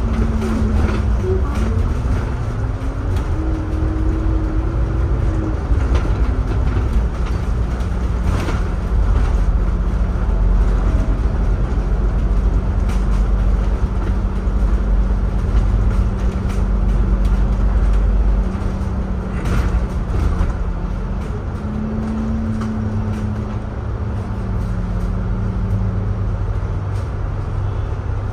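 Double-decker bus running in city traffic, heard from the upper deck: a steady low engine and road rumble with a drivetrain tone that rises and falls as the bus speeds up and slows, and a few short clicks.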